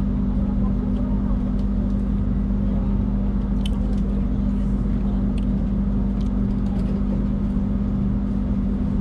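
Passenger train running along the track, heard from inside the carriage: a steady rumble with a constant low hum and a few faint clicks.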